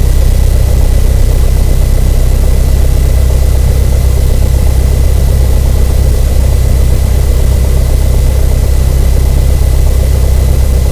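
Cessna 172N's four-cylinder Lycoming engine idling steadily, a deep even drone, with a faint thin high tone running above it.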